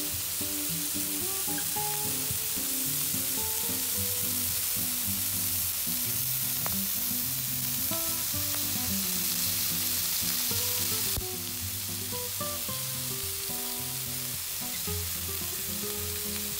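Pork neck chops, sausages and pork belly sizzling on a hot flat griddle plate, a steady hiss of frying fat. Quiet background music plays underneath, and the sizzle drops a little about eleven seconds in.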